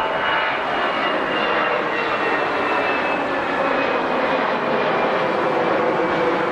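Jet airliner engines running steady, a broad rush with a thin whine that slowly falls in pitch.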